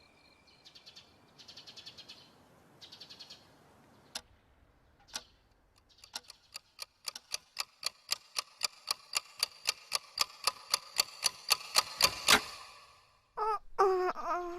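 Clicking sound effect: a few short bursts of rapid clatter, then single clicks, then a long run of clicks that speed up and grow louder before cutting off about twelve seconds in. Near the end a short pitched sound wavers and falls.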